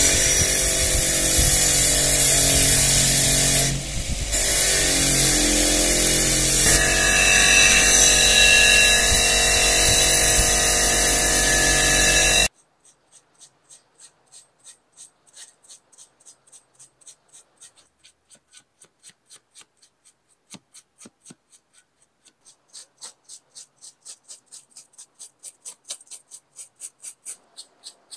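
An electric power tool runs at speed, its pitch dipping briefly about four seconds in. About halfway through it cuts off suddenly, giving way to light rhythmic hand-rubbing strokes, about two a second, that quicken near the end.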